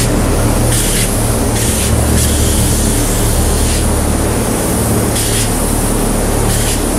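Plural-component polyurea spray gun hissing as it sprays the coating, the hiss surging in short bursts every second or so over a steady low hum.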